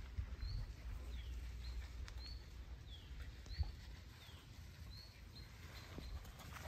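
A small bird calling again and again with short high chirps, some arching up and down and some sliding downward, roughly one every half second, over a low rumble that fades after the first few seconds.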